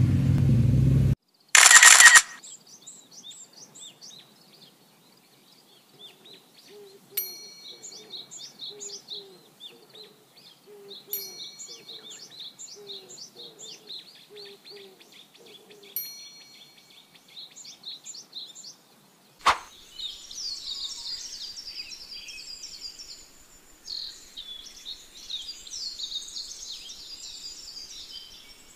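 Small birds chirping and singing in short repeated phrases, growing denser in the last third. It opens with a low rumble that cuts off about a second in and a short loud burst, and there are three brief ding-like tones and one sharp click along the way.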